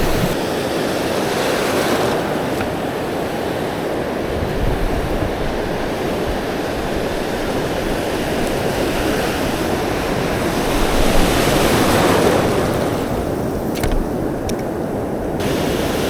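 Ocean surf breaking and washing up on a sandy beach, a steady rush that swells about two-thirds of the way through, with wind buffeting the microphone.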